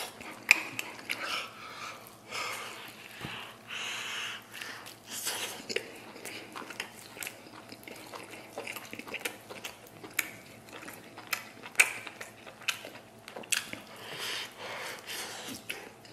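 Close-up chewing, biting and lip-smacking as a man gnaws tender stewed lamb rib meat off the bone, with irregular sharp wet smacks, two of them louder about half a second in and near the twelve-second mark.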